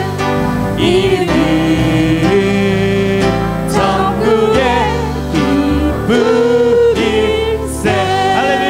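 A church praise team singing a Korean worship song into microphones, several voices over instrumental accompaniment.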